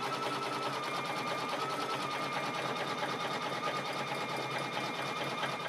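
Baby Lock Destiny II sewing and embroidery machine running at a steady speed: a rapid, even needle clatter over a steady motor whine, fading away at the very end.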